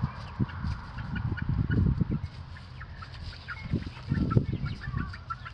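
Chickens clucking and chirping in short, scattered calls, with a few stretches of low rumble in between.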